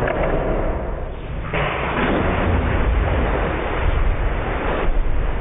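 A burst water balloon's water pouring and splashing down into a bathtub, heard slowed down as a loud, deep, rough rumble. The sound changes abruptly about a second and a half in and again near the end.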